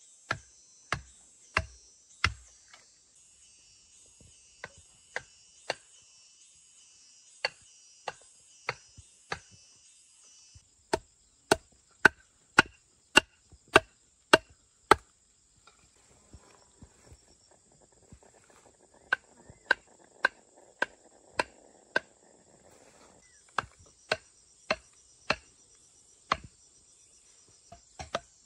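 Sharp blows of a tool striking bamboo, in runs of several strokes at about two a second, with pauses between the runs. Insects chirr steadily in the background.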